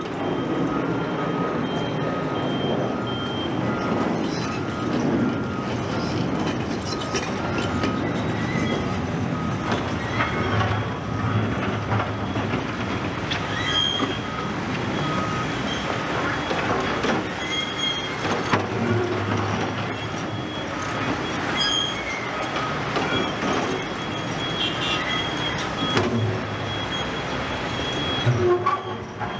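Heavy construction machinery working on a railway track site: diesel engines running under a continuous rumble, with scattered metallic clanks. Reversing alarms beep in regular pulses through much of it.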